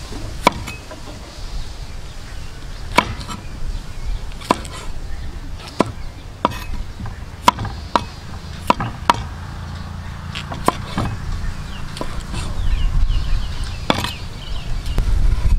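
Cleaver striking a thick round wooden chopping board as a cucumber is cut into spears: sharp single chops, about a dozen at an uneven pace. A low rumble comes up near the end.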